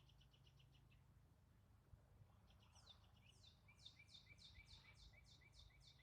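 Faint songbird singing: a short rapid trill at the start, then from about halfway a series of quick downward-sweeping notes, about three or four a second.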